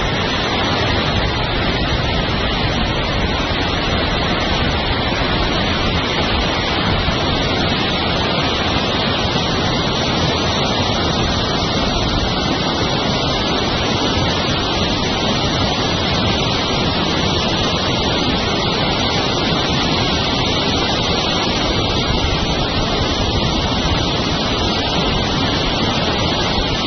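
Steady rush of water pouring through a channel and over a grate, an even noise without breaks.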